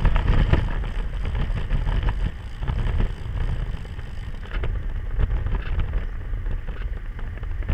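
Wind buffeting the microphone of a camera on a moving road bike, a loud steady rumble mixed with tyre noise on the road, with a few sharp knocks from bumps.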